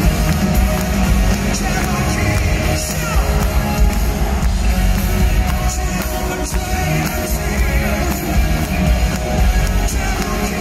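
A live rock band playing loudly in an arena, with the lead singer singing over it.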